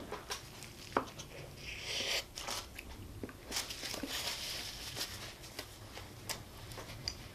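A bite into a Wendy's Baconator bacon cheeseburger, then close-up mouth chewing with many small wet clicks and smacks.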